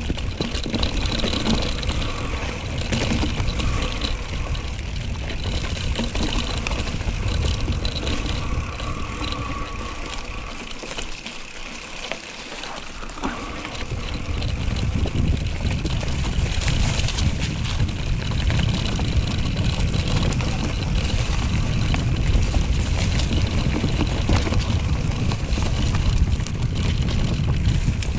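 Wind buffeting an action camera's microphone as a mountain bike rides fast downhill, with the tyres and bike rattling over rough trail. The rumble drops away briefly about eleven seconds in, then comes back as loud as before.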